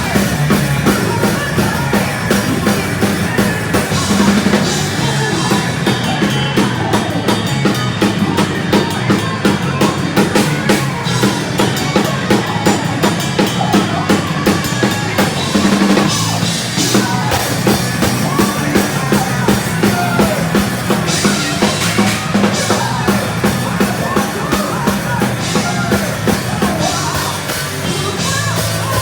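Heavy speed metal band playing live: an instrumental stretch with fast, evenly spaced drum-kit hits and bass drum under the band.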